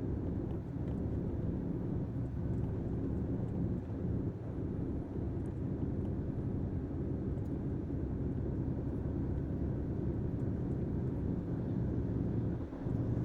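Truck engine running steadily under way, a constant low rumble heard from inside the cab.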